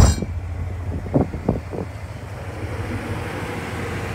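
Wind buffeting the microphone, a steady rushing over a low rumble. A sharp knock right at the start and a few softer knocks about a second later stand out over it.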